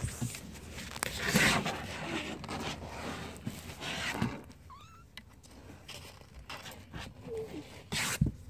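Kittens scuffling and brushing against a phone on a carpeted floor: rustling and knocks, loudest about a second in and near the end. There are a couple of faint short squeaks in between.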